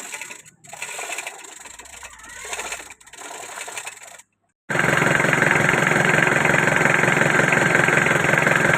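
Quieter irregular mechanical noises, then after a sudden cut about four and a half seconds in, the freshly overhauled Mitsubishi L200 engine running steadily and loudly at idle.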